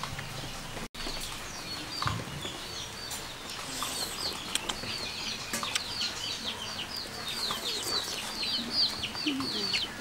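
Young chickens peeping: a rapid run of short, high chirps that each fall in pitch, growing busier from about four seconds in.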